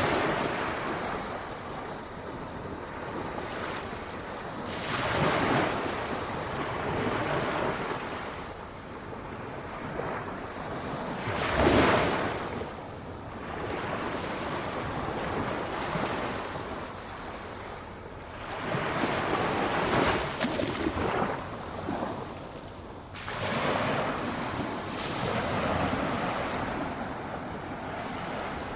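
Small waves breaking and washing up the shore on a calm sea, a soft wash that swells and falls away every few seconds, with one louder break about twelve seconds in.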